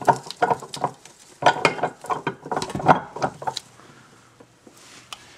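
Steel gears and shaft of an NV3500 manual transmission clinking and knocking against each other as they are worked by hand in the opened case. A quick run of clinks for about three and a half seconds, then it quietens.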